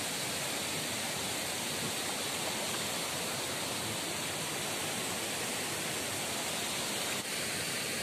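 Steady rushing of a waterfall, an even wash of falling water with no breaks.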